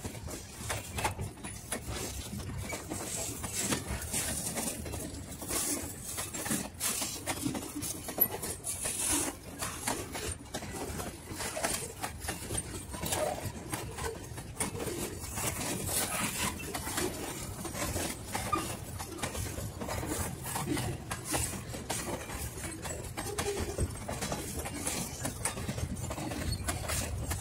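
Freight cars rolling past, their steel wheels clattering over the rail joints, sped up threefold into a rapid, continuous patter of clicks.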